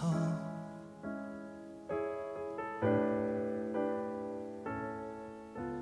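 Piano playing slow chords, each struck and left to ring and fade, roughly one a second, in the gap between sung lines of a slow ballad.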